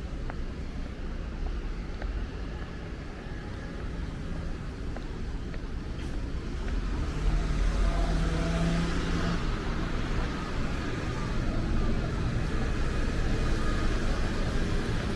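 Road traffic noise, a steady rumble that grows louder about halfway through, with a brief engine hum as a vehicle comes close.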